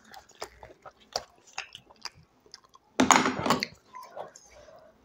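Close-miked chewing of food: a run of small wet clicks and smacks from the mouth, with one louder, rough burst of noise lasting under a second about three seconds in.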